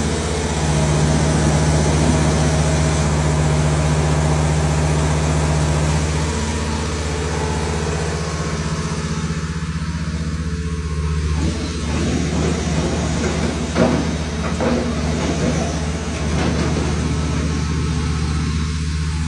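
Engine of a truck-mounted well-drilling rig running steadily under load, with a few sharp knocks and clanks a little past the middle as the drill bucket is worked.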